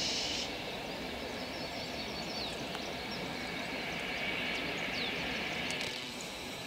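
Passenger train approaching in the distance: a steady rumble and hiss of the train running, with birds chirping now and then.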